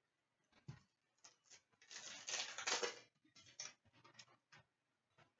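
Hockey trading cards and their pack being handled: a soft knock, then about a second of crinkly rustling, and a few light clicks.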